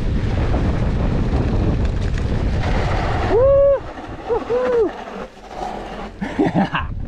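Wind rushing over the microphone of a moving mountain bike for the first half. About halfway through it falls away and several short calls are heard, each rising and then falling in pitch: one loud call, two shorter ones just after, and lower ones near the end.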